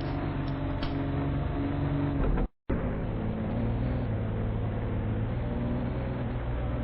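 Car engine running at a steady speed, a continuous even drone that cuts out completely for a moment about two and a half seconds in, then resumes unchanged.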